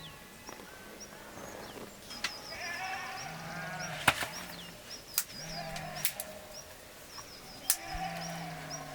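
Sheep bleating, several calls in turn, with a few sharp clicks or knocks and a run of short, high chirps repeating in the background.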